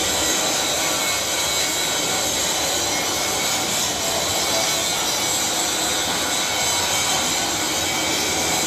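Sheet-metal machine tool running steadily: a continuous mechanical hiss and rasp with a high-pitched whine over it, as sheet metal is worked through it.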